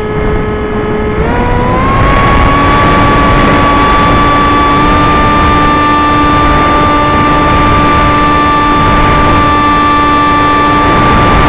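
Small electric pusher motor of a Skysurfer RC glider whining in flight, with a steady rush of air noise. Its pitch steps up about a second in as the throttle is raised, then holds steady.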